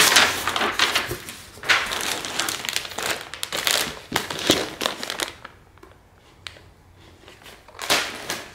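Packaging being crinkled and handled as items are unwrapped: rustling, crackling bursts for about five seconds, then a pause and one more short burst near the end.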